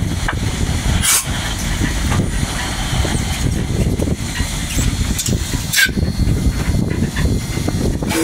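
Cab sound of a Rio Grande K-36 2-8-2 narrow-gauge steam locomotive moving slowly: a steady low rumble, with two short hisses about a second in and again near six seconds.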